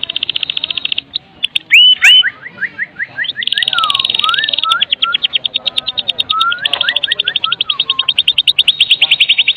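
White-rumped shama (murai batu) giving its 'kretekan' call: long runs of very fast, evenly repeated rattling notes, mixed with short whistled notes that slide up and down.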